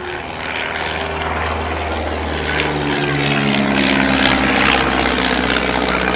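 De Havilland Tiger Moth biplane flying overhead, its four-cylinder Gipsy Major engine and propeller droning steadily. The engine note rises in pitch and grows louder about two seconds in as the aircraft comes closer.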